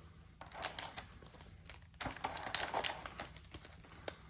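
Rustling and light clicking of cardboard box and foil trading-card packs being handled, in irregular spurts.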